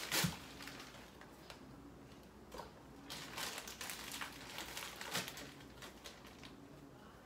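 Plastic bag of frozen fruit pieces crinkling and rustling in the hands, with a thump just after the start.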